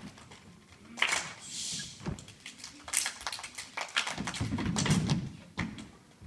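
A group of children doing body percussion: uneven clusters of hand claps and thumps from patting their chests, not quite in unison.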